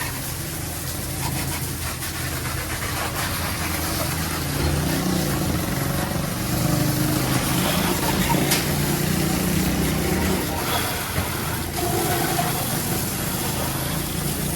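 A motor running steadily with a low hum that grows louder through the middle and eases off after about ten seconds, with a constant hiss over it.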